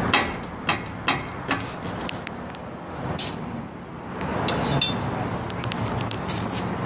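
Steel rigging chain clinking: a series of sharp metallic clinks, several in the first two seconds and a few more later, as the chain is handled on the hanging transformer, over a steady low background hum.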